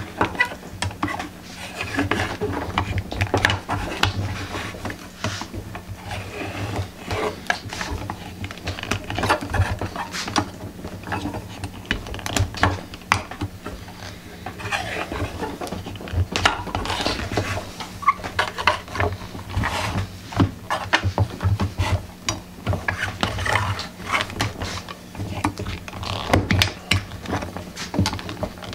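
Heavyweight copper strip being pressed and bent by hand around a wooden template with a wooden-handled metal forming tool: irregular scraping, clicking and tapping of metal on wood, over a low steady hum.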